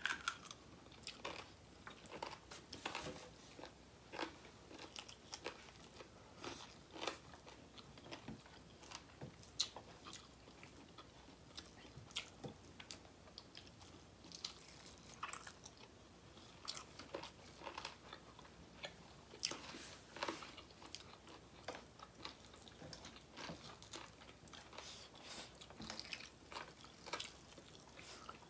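Close-up eating sounds: people chewing and biting food, with many small irregular crunches, clicks and mouth smacks.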